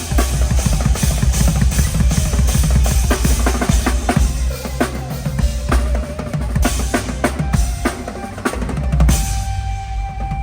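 Live drum kit played through a PA at a sound check: a busy run of rapid kick and snare hits over a heavy low end.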